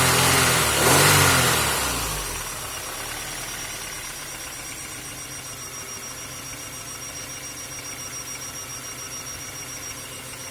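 The 2002 Honda Accord's F23Z5 2.3-litre four-cylinder engine, which has a misfire, is revved briefly about a second in, then drops back to a steady idle.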